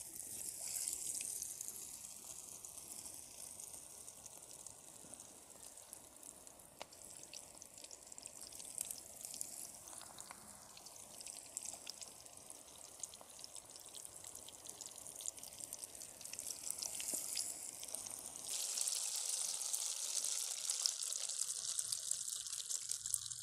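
Egg-stuffed chilli bajji deep-frying in hot oil in a black pan: a steady sizzling hiss with fine crackles, stepping up louder about 18 seconds in.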